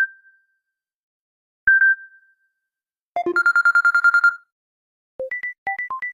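Samsung Galaxy A20s ringtone and notification tones played one after another. There are two single electronic pings, one at the start and one under two seconds in, then a fast trill of identical beeps lasting about a second. About five seconds in, a melody of short beeps at changing pitches begins.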